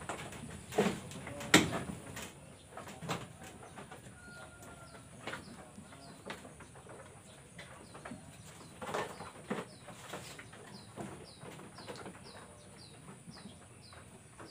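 Farmyard background with birds calling: a few short, sharp sounds in the first two seconds, the loudest about a second and a half in, then a quick run of small high chirps, about three a second, near the end.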